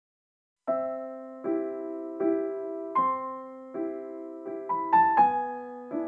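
Background music: a soft piano playing slow, struck chords that fade between strokes, starting just under a second in after silence.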